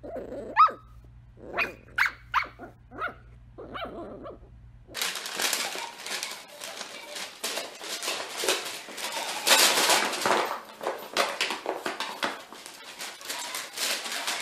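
A dog gives about six short, high barks and yips. Then comes continuous crackling, rustling and ripping of paper and cardboard as a dachshund shreds paper and tugs a cardboard box across a tile floor.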